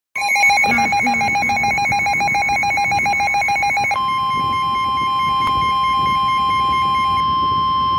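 Weather radio alert tones before a tornado warning: a rapid, evenly pulsing electronic beep, then about four seconds in a single steady alarm tone that holds on. This is the warning alarm that signals an urgent alert, here a tornado warning.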